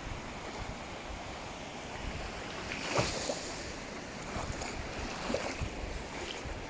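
Ocean waves washing on a beach, with wind rumbling on the microphone; a wave surges loudest about three seconds in, with smaller washes later.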